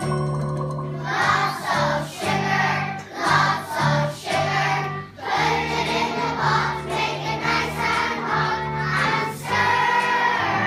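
A children's choir singing a song over a steady instrumental accompaniment, the voices coming in about a second in.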